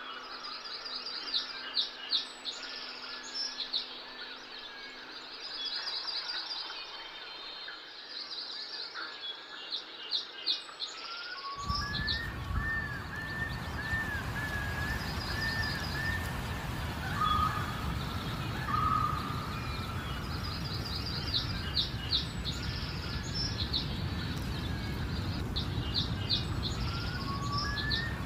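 Birds calling in the forest: rapid series of high chirps and short arching whistled notes, repeated throughout. About twelve seconds in, a steady outdoor rushing noise comes in underneath.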